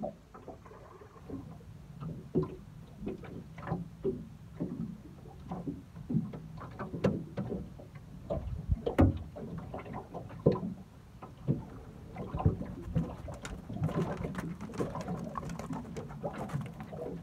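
Irregular knocks, clicks and splashes of a hooked flathead being landed and handled, over a low steady hum. The knocks come thicker and louder over the last few seconds.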